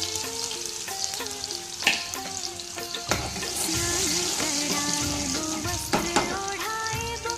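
Food frying and sizzling in hot oil in a pan, the tempering for chana dal tadka, with a spoon stirring and clinking against the pan. A Hindi devotional song plays over it.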